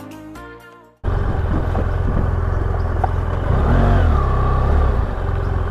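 Background music fades out in the first second, then the engine of a BMW GS adventure motorcycle comes in abruptly, running at low speed as the bike is ridden slowly over dirt, with a brief rise and fall in revs a few seconds in.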